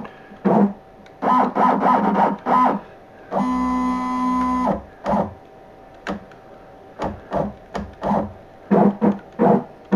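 Homemade CNC machine's axis motors jogging the pen-holding head in a series of short moves, each a brief pitched whine, with one longer steady tone of about a second near the middle. The machine is being inched into position to set its zero.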